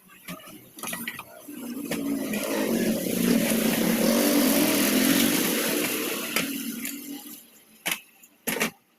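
Honda GX200 generator's small single-cylinder petrol engine running briefly: it builds up over a couple of seconds, runs loudly for about four seconds, then dies away. Two sharp knocks follow near the end.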